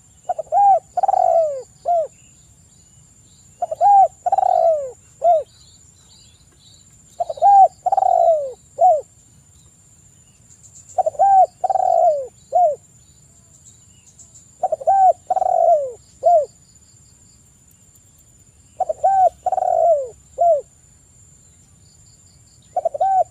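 Spotted dove (tekukur) cooing: a repeated phrase of two short coos, a longer falling coo and a final short coo, about every four seconds, seven times over. Faint high chirps and a thin steady high tone sit underneath.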